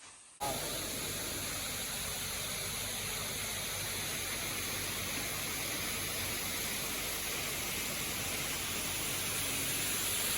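Steady rushing water of a waterfall, an even hiss-like noise that cuts in suddenly about half a second in and grows slightly louder toward the end.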